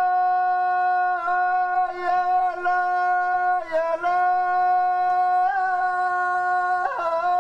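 A voice holding a long, steady sung or hummed note, broken a few times by brief breaths and small dips in pitch before it returns to the same note.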